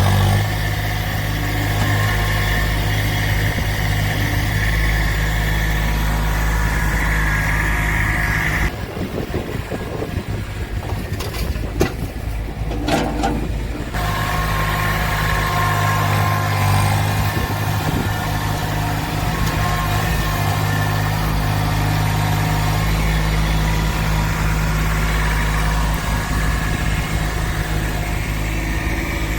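Engine running steadily at a low, even pitch. About nine seconds in, the steady hum gives way for roughly five seconds to a rougher stretch with a few knocks, then settles back to the same steady running.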